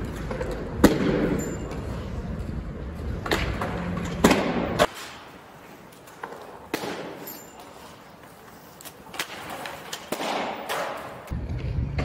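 Inline skate wheels rolling over a concrete skatepark, with sharp clacks of skates hitting ledges and landing: a loud one about a second in and several more around four seconds in. The rolling rumble drops away about five seconds in and returns near the end.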